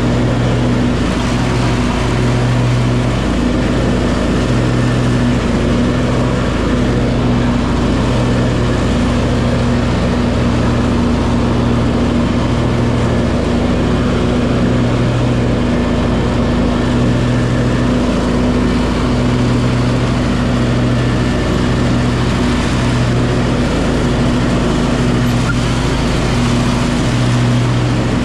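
Cub Cadet garden tractor's engine running steadily at mowing speed with the mower deck engaged, a loud even drone that wavers slightly, over the rushing noise of the blades cutting grass.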